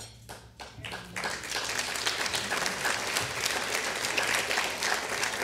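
Audience applauding, beginning about a second in and holding steady.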